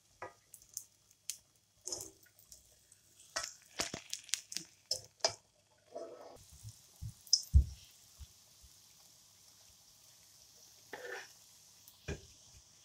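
A metal slotted spoon clinking and scraping against a pan of frying oil as fried lentil fritters are lifted out. From about six seconds in, a steady sizzle of hot oil as fresh lentil-batter balls fry, with a few knocks of the spoon.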